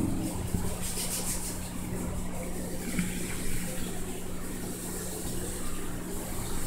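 Reef aquarium's circulation equipment running: a steady pump hum under the sound of moving, splashing water.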